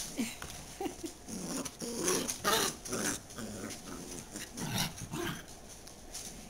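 Small dachshund growling in short, irregular bursts as it digs and burrows into blankets, with the rustle of the fabric between growls.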